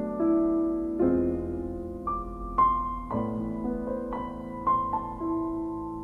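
Background music: a slow, soft piano melody with notes struck and left to ring.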